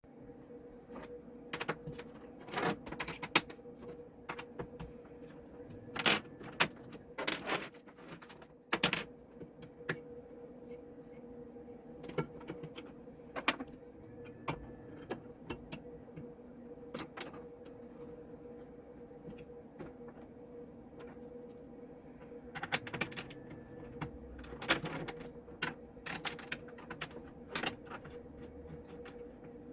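An aluminum workpiece and metal tools being handled as the part is flipped over and seated on locating pins: irregular metallic clinks and knocks over a steady hum.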